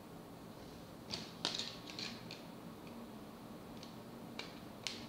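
Small sharp plastic clicks as the Xolo Q600's snap-on back cover is pressed into place: a quick cluster about a second in, then a few single clicks near the end.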